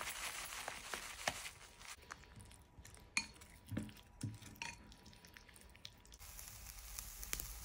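Dry rolled oats poured from a packet into a ceramic bowl with a soft, even rustle. Then chopsticks click against the bowl and squelch while stirring a thick, wet batter.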